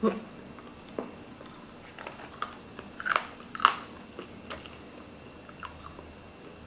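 Close-miked chewing of a mouthful of veggie burger: soft, irregular wet mouth clicks with a few sharper crunches, a few a second.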